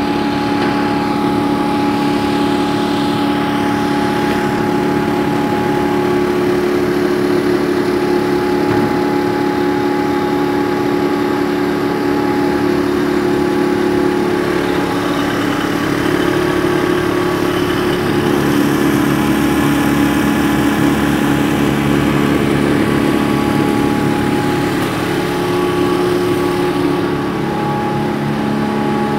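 Impact pulverizer grinding plant running, milling turmeric into powder: a loud, steady machine hum with several held tones, whose mix shifts a little about halfway through.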